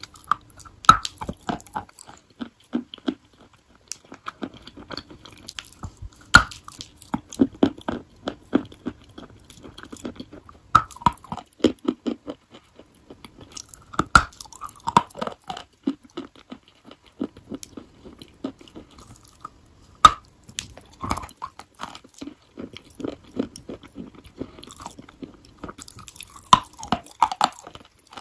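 A chunk of chalk being bitten and chewed: sharp crunches as pieces snap off, several louder bites a few seconds apart, with crunchy chewing in between.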